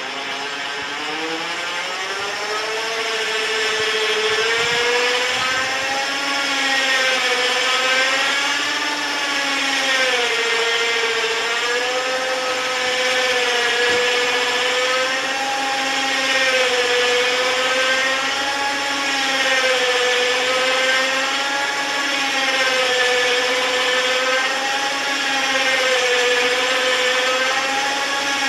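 Electric DC motor of a US Tower MA40 telescoping tower running at full speed on about 18 volts, extending the tower: lots of noise, a steady whine whose pitch wavers up and down about every two seconds, growing louder over the first few seconds.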